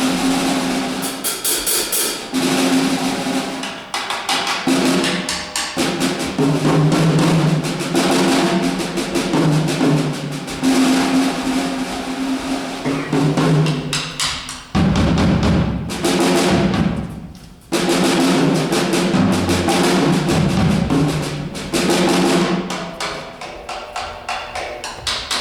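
Drum kit played live, with rolls on the tom-toms and snare that hold the drums' pitched ring. Near the middle a loud, low roll swells for a few seconds and then cuts off suddenly before the playing resumes.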